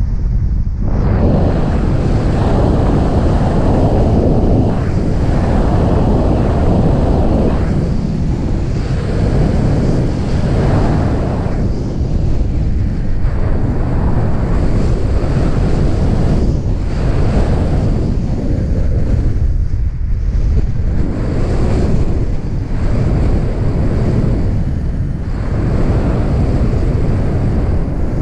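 Loud wind rushing over the microphone of a camera carried on a paraglider in flight, swelling and easing in gusts every second or two.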